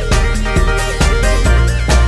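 Background music with a steady beat, about two beats a second, over a strong bass line.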